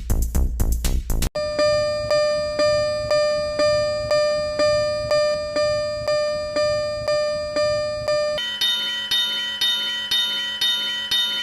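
A short electronic dance beat cuts off about a second in. A Japanese railway-crossing alarm bell then rings its kan-kan, about two evenly spaced dings a second. Near the end it switches to a higher-pitched, slightly faster ding.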